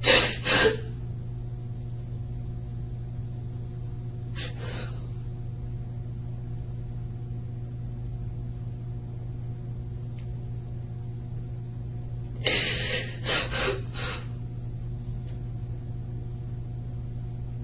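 A woman's short, noisy breaths: two at the start, one about four seconds in and a quick cluster of several around twelve to fourteen seconds in, over a steady low room hum.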